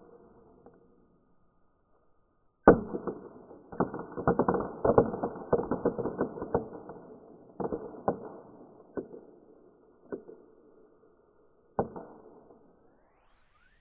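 Crackle balls going off: a dense burst of sharp crackling pops starting about three seconds in, thinning to scattered single pops, with a last one near the end. The sound is muffled, its treble cut away.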